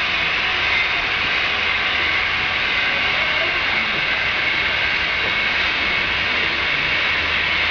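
Model trains running on a layout: a steady rolling, whirring noise of wheels on rails and small motors, with a long container train passing close by.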